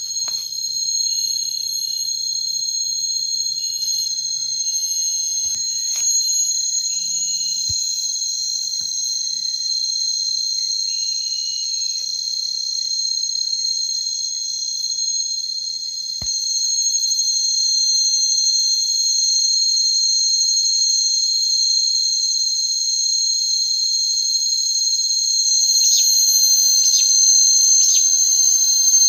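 A steady, high-pitched chorus of insects such as crickets, with two overlapping shrill tones. Near the end, a few faint clicks and rustles join in.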